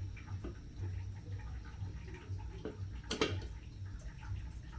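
Ugali sufuria handled on the stove: a sharp knock about three seconds in, over a low steady hum and faint scattered clicks.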